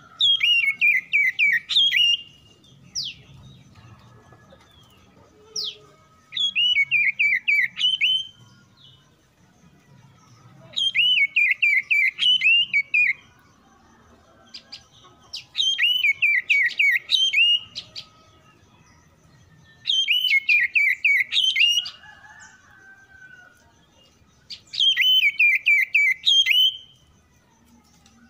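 Oriental magpie-robin song: a loud two-second phrase of rapid, sharp, dipping notes, repeated six times about every four to five seconds with almost the same pattern each time. Between the first phrases come single short whistles.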